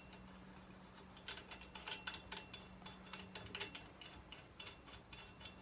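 Faint, irregular metallic clicks and ticks as the lock nut is run onto the bolt that holds the Thompson T44 star wheel on the drill's closing-wheel arm, before it is tightened.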